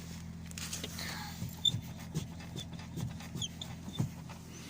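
Cable clutch pedal of a Lada being pumped, giving several short squeaks and clicks over a steady low hum. The squeak comes from the pedal bracket and cable, which oil dripped on the upper bracket has not cured.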